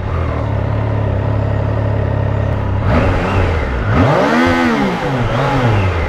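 Triumph Tiger Sport 660's inline three-cylinder engine idling, then revved twice: a short blip about three seconds in and a longer rise and fall of revs around four to five seconds in.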